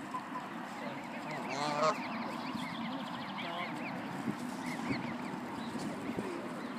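A Canada goose honking, with one loud call about two seconds in, among short high chirps that repeat throughout.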